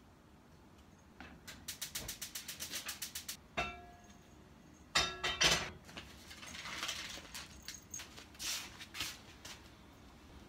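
Kitchen worktop sounds: a fast run of even clicks lasting about two seconds, then a ringing clink of metal or crockery, and a louder double clink a second and a half later. Light rustling and soft knocks follow.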